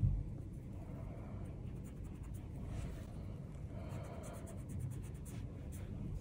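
Soft scratchy rubbing and small handling noises of manicure work at the nail table, over a steady low hum. A single knock right at the start.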